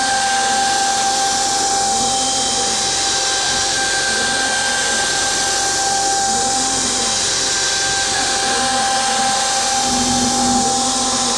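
A DIY CNC router's spindle runs with a steady high whine over a broad machining noise. Beneath it a lower hum rises and falls in pitch about every two seconds as the machine moves along its path.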